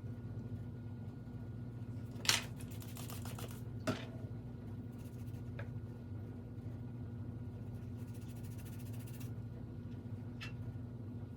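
Steady low electrical hum from bench equipment during a circuit-board repair. Over it come two sharp clicks about two and four seconds in, two stretches of fine high buzzing, and a few faint small ticks.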